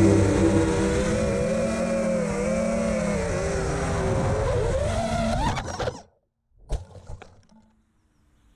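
FPV drone's brushless motors and propellers whining in flight, their pitch wavering with throttle. The pitch rises sharply, then the sound cuts off suddenly about six seconds in as the drone crashes and the motors stop. A single thump and a brief rustle follow as it lands in the pine needles.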